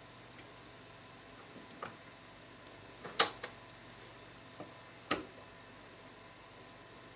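Mechanical clicks from a Technics SL-B210 turntable's tonearm as it is lifted off the record and set back on its rest: about five separate clicks, the loudest about three seconds in.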